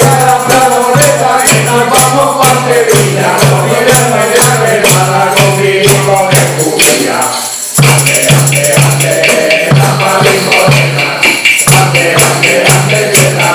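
Men singing a Spanish Christmas carol (villancico) together, with tambourines shaken and struck over a steady low beat about twice a second. The music drops briefly a little past halfway, then picks up again.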